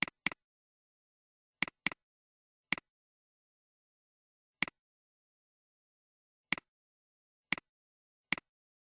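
Computer mouse clicks, about nine sharp single clicks at uneven intervals, two of them close pairs like double-clicks, with dead silence between.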